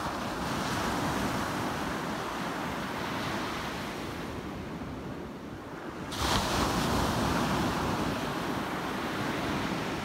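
Ocean surf: waves breaking on a sandy beach, one at the start and a louder one about six seconds in, each followed by a long wash of foam.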